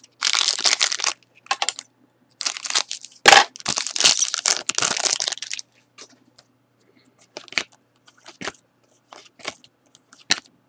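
A foil trading-card pack is torn open and crinkled, with a sharp crack about three seconds in. After that come light clicks and snaps as the stiff cards are handled.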